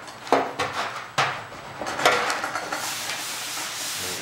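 A hand-held metal body tool knocks sharply against a car's metal trunk lid a few times. From about two seconds in it is rubbed steadily across the panel, a continuous scraping as the dent area is worked down.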